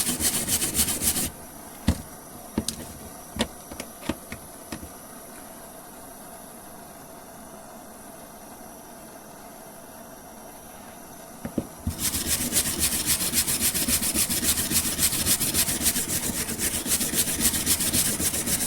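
Hand wire brush scrubbing a steel door hinge in fast back-and-forth strokes, stripping off paint softened by a blowtorch. The scrubbing stops about a second in, a few light clicks and knocks follow, and it starts again about twelve seconds in.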